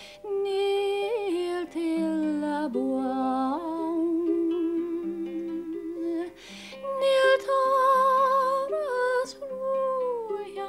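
A woman's voice singing a slow melody in long held notes with vibrato, to her own accompaniment plucked on a small Irish harp. The singing breaks for a breath just after six seconds in, then carries on.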